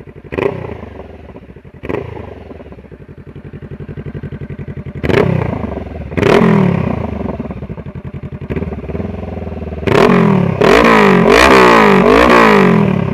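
2014 Honda CBR500R's parallel-twin engine, fitted with a short Kaufmann exhaust with its baffle removed, idling and blipped about five times, then revved hard several times in quick succession near the end. The exhaust is really loud.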